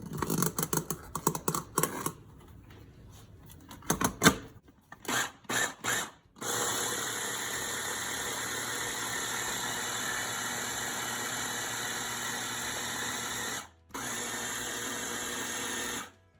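A spoon clinks against a bowl and knocks a few times, then an electric blender starts and runs steadily, blending the cream cheese with the added whey. The motor stops briefly about two seconds before the end, runs again, and cuts off just before the end.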